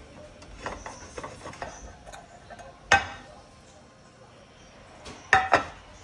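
Kitchenware clatter as a glass baking dish and utensils are handled on a counter: a few light clicks, a sharp knock about three seconds in, and two quick knocks near the end.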